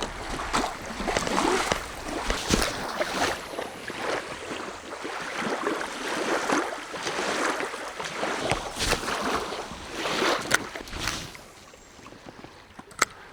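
Shallow lake water splashing and lapping in irregular surges, easing off near the end, then a single sharp click.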